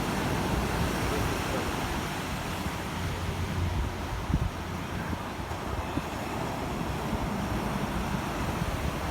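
Wind buffeting the microphone over steady surf on the shore, with a brief low thump just after four seconds in.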